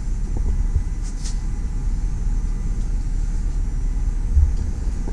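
The 2008 Porsche Cayman S's flat-six engine idling: a low, steady rumble with a brief surge near the end.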